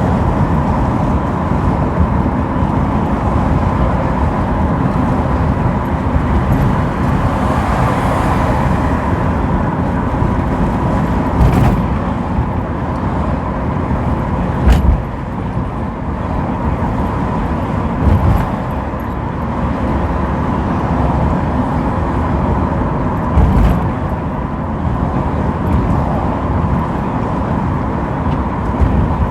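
Car driving at highway speed: steady road and engine noise, with a few short thumps along the way.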